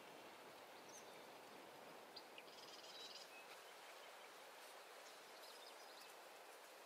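Near silence: faint outdoor pond ambience with a few faint, brief, high-pitched bird chirps scattered through.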